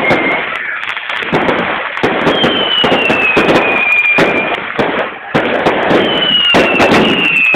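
Fireworks and firecrackers going off in a rapid, dense string of cracks and bangs. Long high whistles sliding downward in pitch run over them twice.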